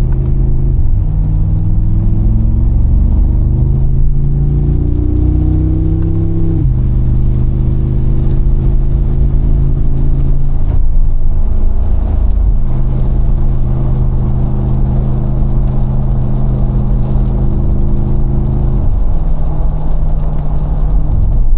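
Mercedes-AMG G63's 4.0-litre twin-turbo V8 pulling with a rising note for about six seconds, then dropping suddenly in pitch as it shifts up. It then runs at a steady note, with further drops in pitch about halfway through and near the end.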